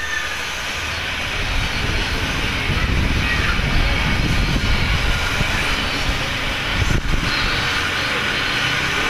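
Steady, loud rushing noise, with faint voices behind it.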